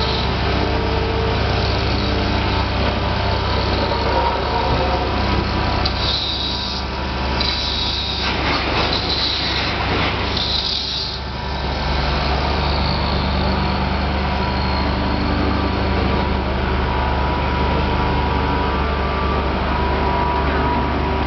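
Engine-driven vacuum slab lifter and its carrier machine running steadily with a low drone, with several short hisses of air near the middle.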